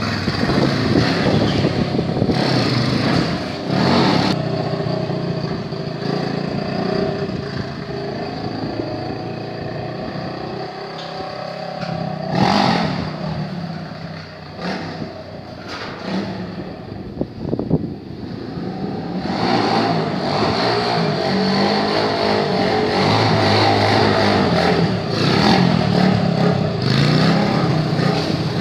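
Small dirt-style motorcycles revving as they are ridden on the back wheel, the engine pitch rising and falling with the throttle. The sound is quieter through the middle and louder again from about twenty seconds in as a bike passes close.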